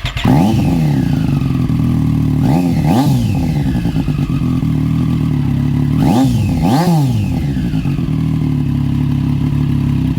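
Triumph Street Triple 765 RS inline-three engine firing up through an SC Project titanium exhaust with its dB-killer baffle removed, then idling loudly with two pairs of quick throttle blips.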